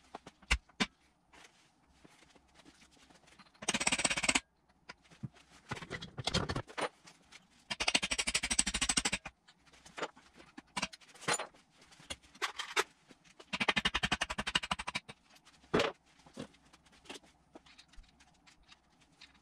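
Metal-on-metal striking as roll pins are driven out of a manual gearbox's shift selector with a makeshift punch. Single sharp knocks are spaced out, broken by three runs of rapid clattering strikes, about 4 s, 8–9 s and 14–15 s in.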